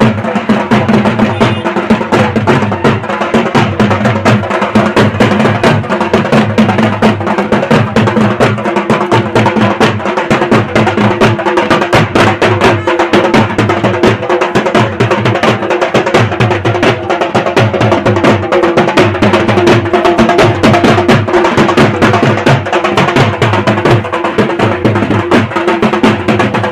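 Dhol, a two-headed barrel drum, beaten in a steady fast rhythm with a held tone sounding under the beat.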